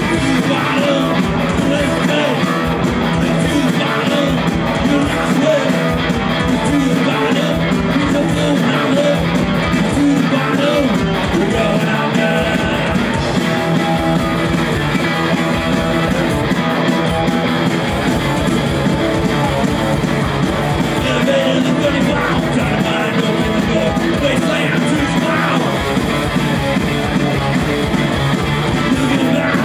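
Punk rock band playing a song live: electric guitar with singing, loud and steady throughout.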